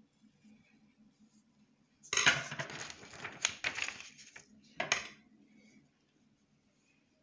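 Metal clattering and clinking against a tabletop with handling noise: a dense run of sharp strokes for about two seconds, then one more short clatter.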